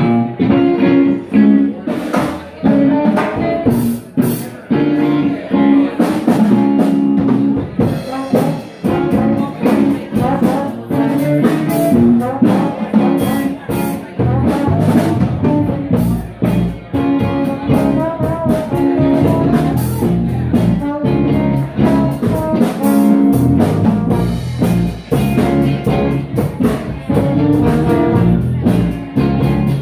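Live band playing a song, with a drum kit keeping a steady beat under the other instruments.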